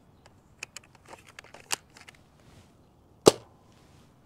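Nerf Rival Curve Shot Flex blaster handled and primed with a series of small plastic clicks, then fired once a little over three seconds in with a single sharp snap.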